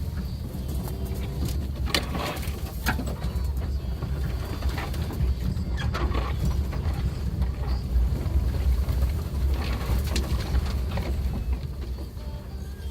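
Suzuki Jimny driving on a rough forest road: a steady low engine and road rumble, with scattered knocks and clatters from the bumpy surface.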